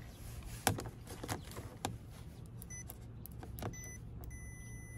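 Multimeter continuity beeper sounding as the test probes make contact: two short beeps, then one held for most of the last second. A few sharp clicks of the probes and parts being handled come before.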